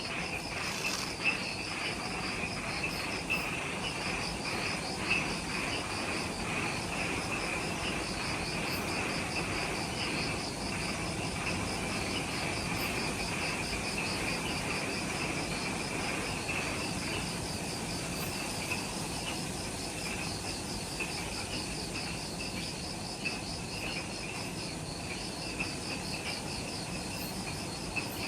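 Chorus of night insects in subtropical forest: a high, fast pulsing trill repeats in phrases with short gaps over a steadier, lower buzzing trill. A few faint ticks sound in the first few seconds.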